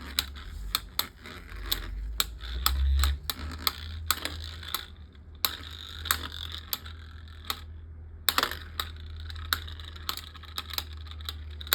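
Two Beyblade Micros spinning tops battling in a small plastic stadium: rapid, irregular clicking and clattering as the tops strike each other and the stadium walls, with brief lulls between clashes.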